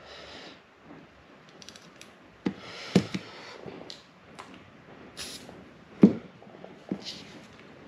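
Hands handling a disassembled baitcasting reel's parts and an aerosol can of reel maintenance spray on newspaper: scattered clicks and knocks with a few short hisses, the loudest a single knock about six seconds in.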